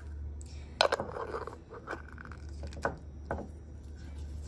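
Small glass jar full of folded paper cranes being handled on a table: a sharp knock about a second in with a short rustle of paper, then three lighter taps of glass. A steady low hum sits underneath.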